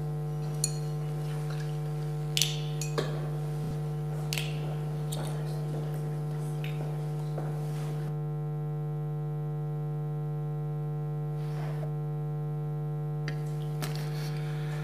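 Steady electrical hum, one low tone with a ladder of overtones, with a few faint knocks and clicks during the first few seconds.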